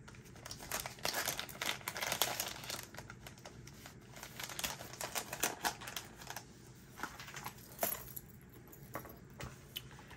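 Hands rummaging through a pouch of paper cards, with rustling, crinkling and scattered light clicks and taps.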